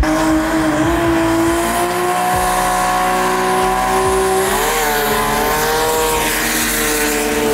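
Race car engine at high revs under full acceleration, its note climbing steadily, with a wobble in pitch about two-thirds of the way through, over loud exhaust and tyre noise.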